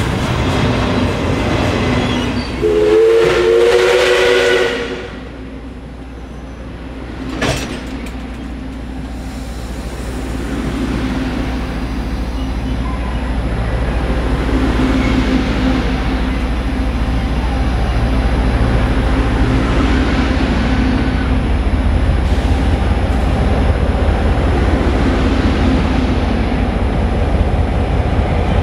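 DT668 steam locomotive's whistle sounding one two-note blast of about two seconds. After a single sharp click, the train's running noise, a low rumble with rail clatter, builds steadily and stays loud.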